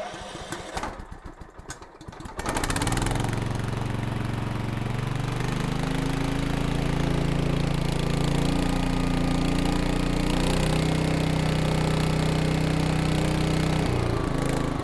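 Kohler Command air-cooled engine cranked on its electric starter for about two seconds, then catching and running. A few seconds later it is run up in speed and held steady while its stator's AC output is measured, and its speed drops near the end.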